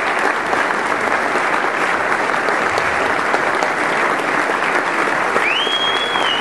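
Audience applauding steadily, with a high whistle that rises and then holds near the end.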